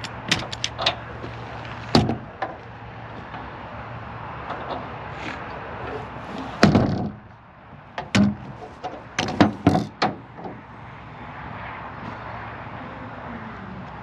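Metal ratchet of a self-winding ratchet strap being released from a load: a quick run of clicks, a knock, a heavy thump about halfway through, then a cluster of clicks and knocks.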